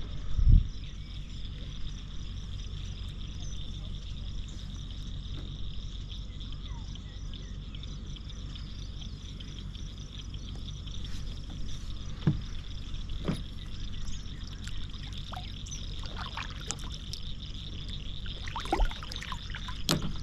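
Water trickling and lapping against a small boat, with insects chirring steadily and a low steady hum underneath. There is a thump about half a second in, and a few sharp knocks later on.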